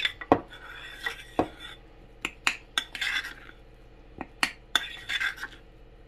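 Metal spoon stirring and beating a thick egg-and-flour batter in a ceramic bowl: sharp clinks of the spoon against the bowl at irregular intervals, mixed with scraping strokes through the batter.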